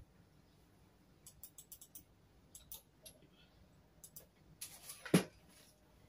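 Scattered light clicks and a louder knock about five seconds in: a computer keyboard being handled and set on a desk.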